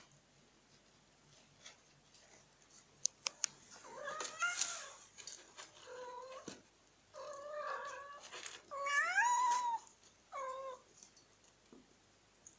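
Domestic cat meowing repeatedly, about five drawn-out calls, several rising in pitch, after a few sharp clicks.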